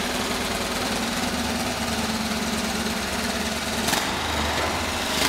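1938 AJS Model 38/22 racer's 350cc single-cylinder overhead-valve engine, running on methanol, running steadily with a fast even beat. A short sharp click about four seconds in.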